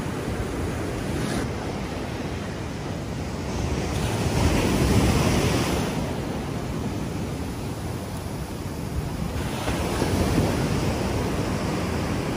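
Surf breaking and washing up the beach, with wind rumbling on the microphone. The wash swells about four seconds in and again about ten seconds in.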